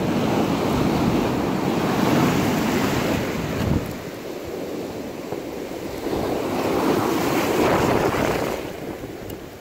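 Ocean surf breaking and washing on a sandy beach, with wind buffeting the microphone; the rushing noise comes in two surges, the second easing off near the end.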